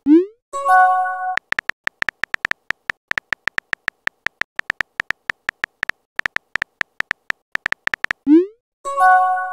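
Phone-keyboard typing clicks from a texting app, short high ticks several a second as a message is typed. Twice they stop for a quick rising swoosh and a short chord-like chime as a message is sent, once at the very start and again about eight seconds in.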